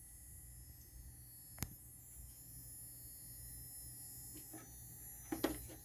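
Faint, steady electronic buzz and high whine from a USB power bank charging through a USB-C docking hub, a noise that appears only when the bank is charged through the hub. There is a sharp click about a second and a half in and a couple of knocks near the end.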